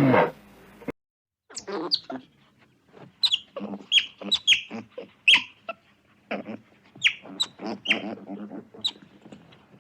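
Animal calls: a rapid series of short, high chirps that drop sharply in pitch, mixed with lower squeaks. Just before this, a cow's moo ends in the first instant.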